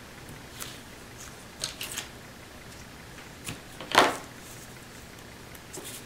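Paper crafting with double-sided tape being pulled from its roll and pressed along a paper strip: a few light crinkles and ticks, and one louder short knock about four seconds in.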